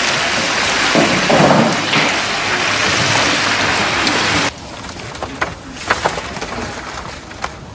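Battered strips deep-frying in a large pan of hot oil: a loud, steady crackling sizzle. About four and a half seconds in it cuts to a quieter stretch with a few light clicks and rattles as fried pieces are tipped from a wire mesh frying basket.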